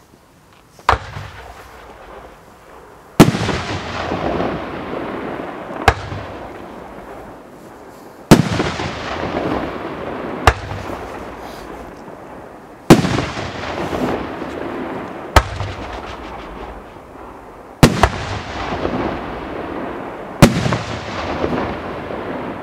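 A 3-inch 25-shot shell cake firework firing its shots one at a time, about every two and a half seconds. Each shot is a sharp report, the louder ones followed by a long fading tail.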